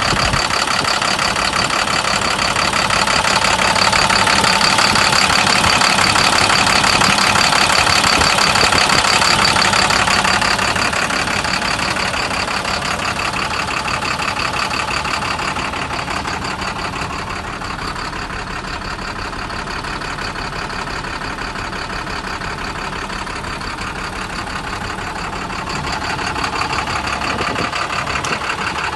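International DuraStar box truck's engine idling steadily with the hood tilted open, louder for about the first ten seconds and then a little quieter.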